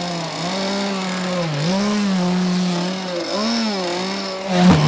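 Small two-stroke internal-combustion engine of a Riptide Stealth model speedboat running out of the water, its revs dipping and picking up again several times as the throttle is blipped. Near the end there is a sudden louder burst as the revs rise.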